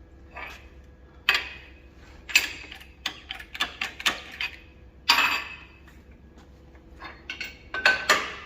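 Irregular sharp metallic clanks and knocks, about ten of them, from steel parts and tools being handled while a differential axle is being straightened.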